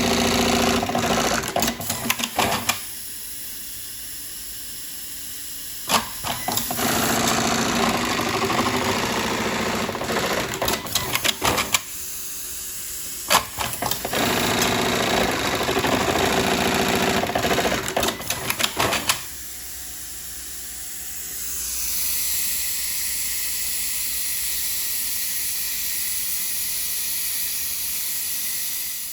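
Juki MEB-3200S automatic eyelet buttonhole machine running in three bursts of rapid stitching, with short quieter pauses and sharp clicks between the cycles. Near the end the stitching stops and a steady hiss remains.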